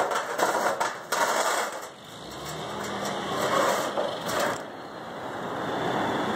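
Sheet-metal roof curb knocking and scraping against the roof as it is lowered and shifted into position, with several sharp metallic clanks over a steady mechanical hum.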